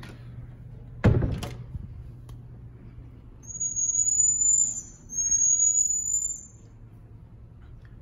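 A door thuds shut about a second in. Then come two long, high, whistling calls from a pet monkey, each about a second long and rising slightly.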